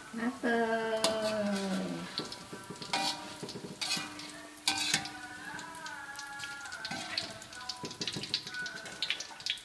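Nuggets sizzling in hot frying oil in a wok, with a spatula and a metal mesh strainer scraping and knocking against the pan as they are stirred and scooped out. Sharp knocks about 3, 4 and 5 seconds in, and a run of small clicks near the end.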